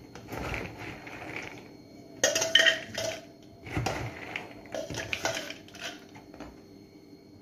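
Metal spoon scooping chickpeas from a plastic bowl and tipping them into a clear plastic jar: scraping against the bowl and the chickpeas rattling into the jar, in about four scoops, the loudest a little over two seconds in, then a few light clicks.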